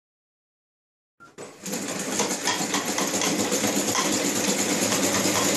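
Homemade pallet-wood treadle scroll saw running, pedalled by foot, with a rod from the flywheel driving the blade up and down. It makes a steady, rapid mechanical clatter that starts about a second in, after silence.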